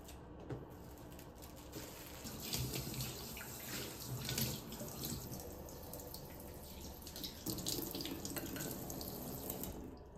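Kitchen tap running into a stainless-steel sink while dishes are washed and rinsed, with a few short knocks of the dishes against the sink. The water shuts off near the end.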